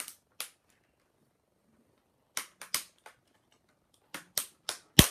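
Sharp plastic clicks and snaps from an HP Pavilion dv2000 laptop being handled and pried apart, about ten in irregular groups, the loudest near the end.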